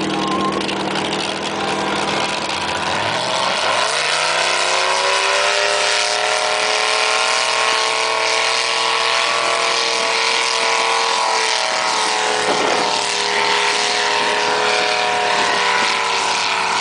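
1972 Ford Bronco's 347 V8 on race fuel, locked in low range, idling and then revving up sharply about three seconds in. It holds at high revs through the rest of the run down the mud track.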